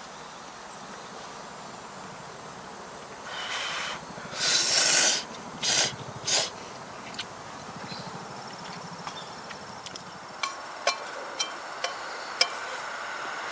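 A person slurping ramen noodles: a short slurp about three seconds in, a longer, louder one at about four and a half seconds, then two brief ones. A few light clicks come near the end.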